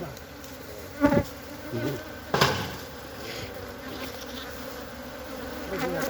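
Honeybee colony buzzing steadily around an opened hive, with a short voice sound about a second in and a sharp knock about two and a half seconds in.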